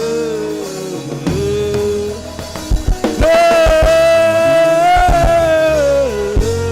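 Music: a voice sings long held notes that slide into pitch, over a bass line, with a few drum hits near the middle.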